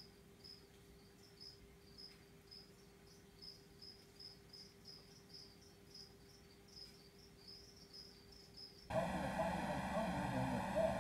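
Faint, regular high-pitched chirping of an insect, about three short chirps a second, over a low steady hum. About nine seconds in it gives way to a much louder steady hiss and hum.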